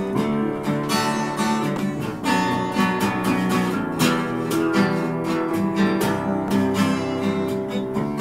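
Acoustic guitar strummed together with an upright piano, an instrumental duet with steady chords and melody.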